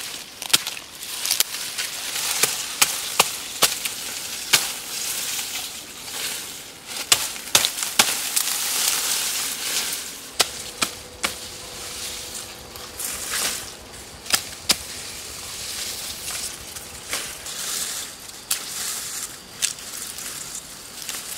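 A knife chopping through tall grass stalks: a dozen or so sharp, irregular cracks, with the rustle of stems and leaves between them.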